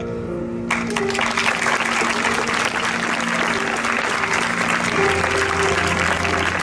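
Audience applause breaking out suddenly about a second in and continuing steadily, over soft background music of held notes.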